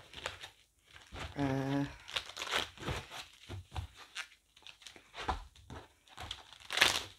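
Tarot cards being handled and shuffled: irregular rustling and flicking of card stock, with the loudest flurry near the end.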